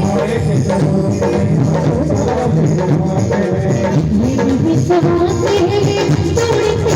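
Devotional bhajan music with a steady beat of drum and rattle-like percussion under a melody line.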